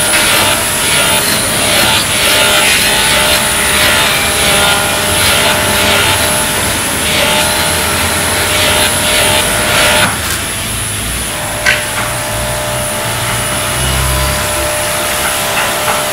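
Woodworking machinery running steadily in a workshop: a continuous mechanical drone with several steady tones and a thin high whine. The upper hiss eases about ten seconds in, and a single sharp click follows soon after.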